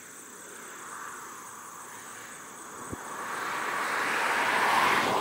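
A motor vehicle passing on the road: its noise swells over about two seconds to a peak near the end, then starts to fade. Insects chirp steadily in the background.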